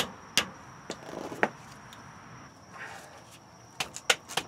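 Sharp metal-on-metal knocks and clinks, about four in the first second and a half and three more near the end, from tools working the tie rod end loose on the front suspension of a 1976 GMC motorhome.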